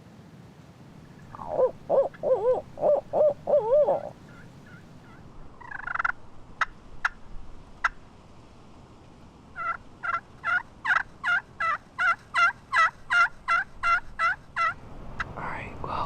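Turkey hunters' calls: first a run of about eight wavering, owl-like hoots, then, after a few clicks, about fifteen sharp calls in an even series over some five seconds, of the kind blown to locate or call in turkeys.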